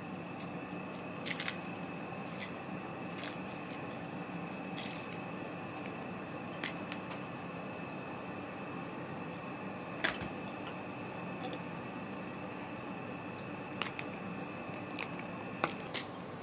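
Scattered light taps and clicks, about ten of them at irregular intervals, as munchkin cats swat and paw at a cat-teaser wand toy; the sharpest comes about ten seconds in and two more close together near the end. A steady faint high whine runs underneath.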